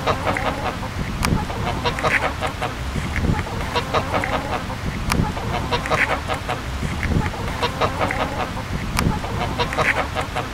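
Domestic hen clucking in short, repeated calls, with sharp clicks from pecking at the ground.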